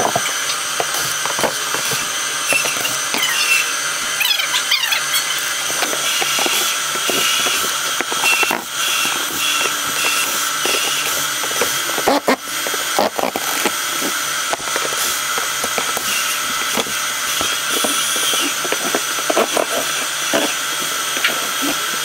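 A cordless drill run in short bursts on screws in wooden set pieces, mixed with knocks and clatter of boards and tools over a steady background noise.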